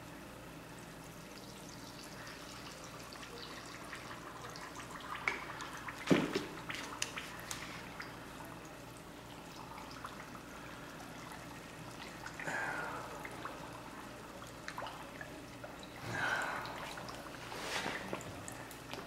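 Water being poured into plaster of Paris in a bucket and stirred in, with faint splashing and sloshing now and then. A sharp knock about six seconds in.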